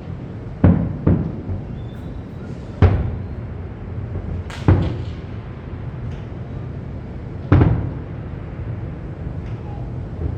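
Aerial fireworks bursting: about five booms at irregular intervals, each dying away over about a second, over a steady background din.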